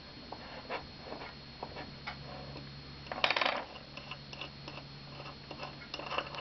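Light metallic clicks and ticks as a socket head cap screw with stacked washers is tightened and loosened in a freshly set helicoil, working the insert so that a thread gauge will pass. There is a louder rattling cluster of clicks about three seconds in.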